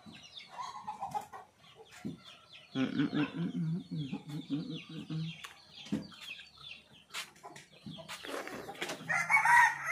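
Chickens clucking, with a stretch of low calls a few seconds in and a louder call near the end, over many short high chirps and scattered small clicks.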